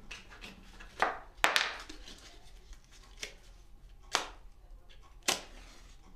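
Small objects clicking and knocking on a wooden workbench, four sharp strokes in all, one with a short scratchy hiss after it. Near the end a match or lighter is struck to light a small brass lamp used to make soot.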